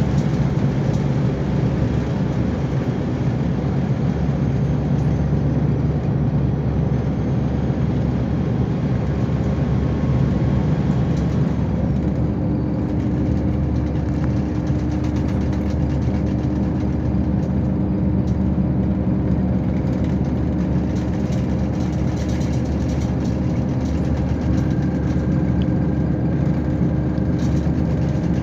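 Inside a Neoplan Starliner coach under way: the MAN D2066 turbo-diesel engine running steadily, with road noise and interior parts rattling. The engine note changes about twelve seconds in.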